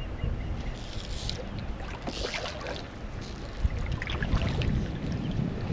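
Wind buffeting the microphone on a kayak, with water splashing around the hull twice, about a second and two seconds in, and small knocks.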